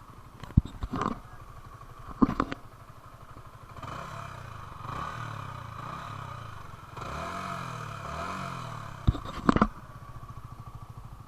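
Yamaha R15 V3's stock exhaust, a 155 cc single-cylinder engine, idling and then blipped several times in the middle, the pitch rising and falling with each blip. Sharp knocks and clatter come twice near the start and twice near the end.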